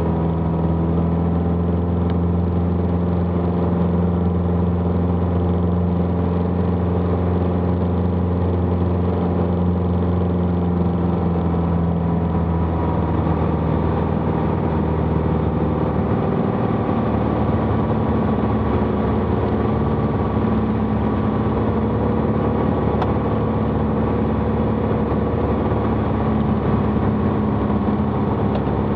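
Piston engine and propeller of a single-engine Piper droning steadily, heard inside the cockpit. The engine note shifts about halfway through as power is eased back on short final for landing.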